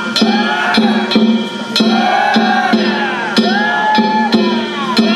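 Danjiri festival music: a taiko drum and metal hand gongs struck in a steady, driving rhythm of about two strokes a second, with the gongs ringing between strokes.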